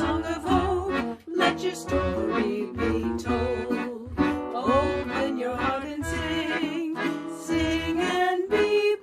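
Music: a wordless instrumental passage of a gentle folk-style song, a melody line over a bass that pulses about once a second.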